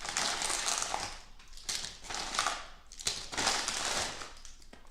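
Hi-Chew candy wrappers crinkling as the chews are unwrapped by hand, in three rustling bursts.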